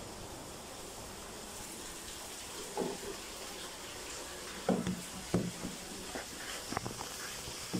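A spoon knocking and scraping in a plastic mixing bowl as soft biscuit dough is stirred: a handful of irregular short clunks, mostly in the second half.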